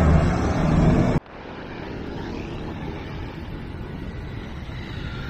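A city bus's engine runs close by as a loud low rumble, cut off abruptly about a second in. A quieter, steady wind-like hiss follows.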